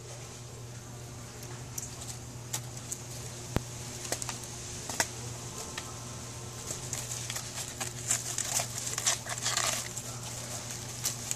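Grapevine leaves and dry bark rustling and crackling as a kitten claws and bites at them, with scattered light clicks that grow busier about eight to ten seconds in. A steady low hum runs underneath.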